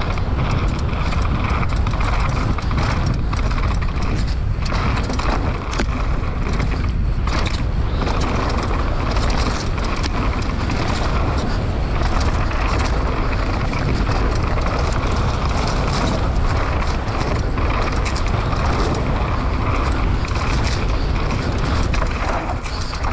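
Wind buffeting the camera microphone over the rolling crunch of knobby tyres on a dry gravel trail as a Commencal downhill mountain bike descends at speed, with frequent short clatters as the bike rattles over bumps.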